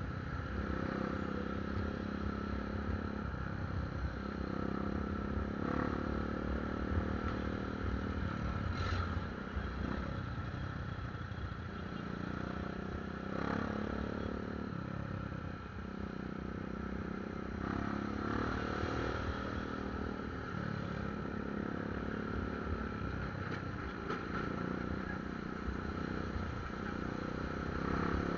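Motorcycle engine running in stop-and-go traffic, its pitch rising and falling every few seconds as the throttle opens and closes, with the noise of surrounding traffic.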